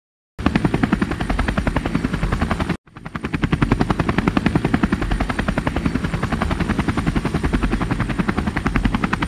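Helicopter rotor sound effect: a steady, rapid chopping of the blades. It cuts in just after the start, drops out briefly about three seconds in, then fades back up.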